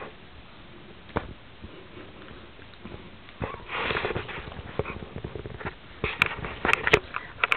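A dog sniffing and snuffling right at the microphone, with a breathy burst about four seconds in. Scattered soft knocks throughout, and a few sharp clicks near the end.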